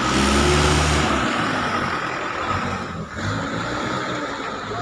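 Truck engine running, strongest with a deep pitched drone in the first second, then a steady rumble and rattling noise.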